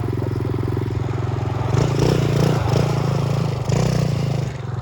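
Small 110cc pit-bike engine idling with a steady, rapid putter, getting louder from about two seconds in until shortly before the end, with the hiss of passing traffic.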